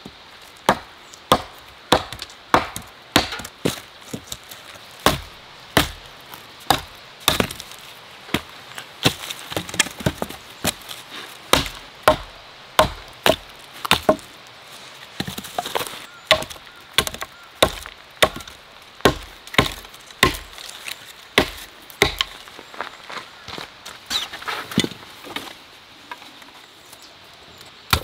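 Small hatchet chopping into a log: sharp strikes of the blade into wood at a steady pace of about three every two seconds, easing off near the end.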